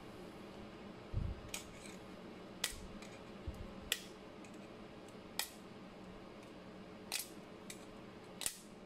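Small screwdriver prying at the crimped metal edge of a sealed gauge case, giving about six sharp metallic clicks a second or so apart as the crimp is bent back to free the bezel ring, with a couple of dull knocks in the first few seconds.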